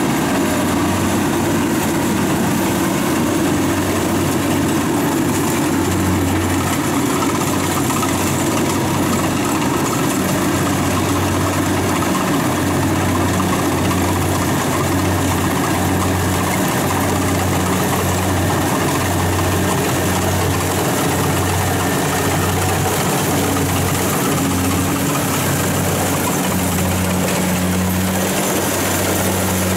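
Kubota DC-70 combine harvester running steadily while it cuts and threshes rice: a constant low engine drone that swells and dips, with a wash of machinery noise above it.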